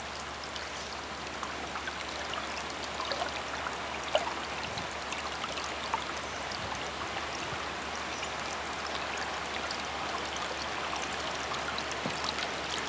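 River floodwater flowing and gurgling past a kayak, with small trickles and splashes and two light knocks about four and six seconds in.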